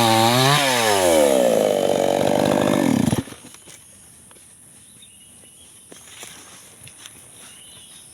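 Two-stroke chainsaw engine rises briefly in pitch, then winds down with a steadily falling note and cuts out about three seconds in. After that there is only a quiet background with a few small ticks and faint chirps.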